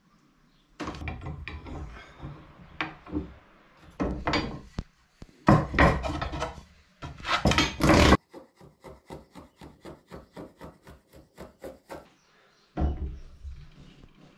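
Rimu boards being worked by hand: knocks and scraping of wood on wood, then a run of short, even rubbing strokes at about three a second.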